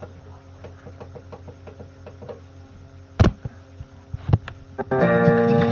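Scattered light taps and clicks over a steady low hum, with two loud sharp knocks about three and four seconds in; near the end, music starts.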